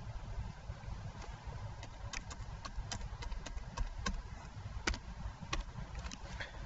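Computer keyboard keystrokes as a password is typed: a run of irregular, quick clicks starting about a second in, over a low steady rumble.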